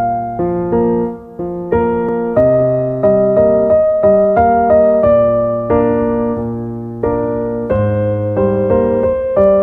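Background piano music: a slow melody of single struck notes, each fading before the next.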